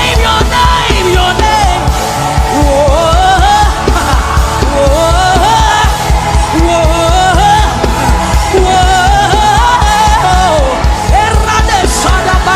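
Gospel worship music with a steady low pulsing beat under a sliding, ornamented melody line, with singing but no clear words.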